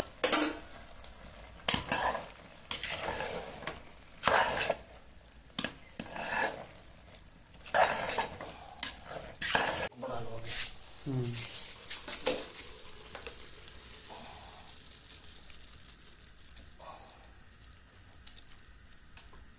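A metal spoon scraping and clinking against an aluminium cooking pot as thick grated-carrot halwa is stirred and scraped out, in a dozen or so separate strokes. The strokes fade after about two-thirds of the way through, leaving a faint sizzle of the cooking carrot mixture.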